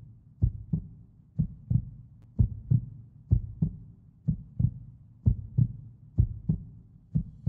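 Heartbeat: steady paired lub-dub thumps at about one beat a second.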